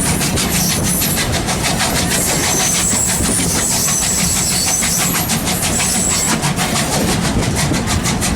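Steam train running along the track, heard from aboard: a steady rumble with a rapid, even clatter, and faint high squealing tones coming and going above it.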